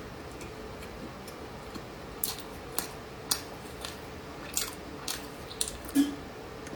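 Close-up eating sounds of a sweet dessert being chewed: a run of sharp, crisp crackles and clicks at an irregular pace, starting about two seconds in, with the loudest near the end, over a faint steady hum.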